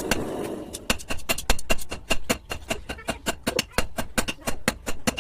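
Blacksmith's hammer striking iron on an anvil in fast, even blows, about five or six a second.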